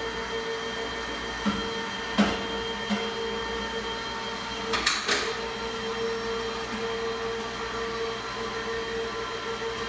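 Electric garage-ceiling hoist motor running with a steady whine, with a few sharp clanks and knocks, the loudest about two seconds in and a cluster around five seconds in.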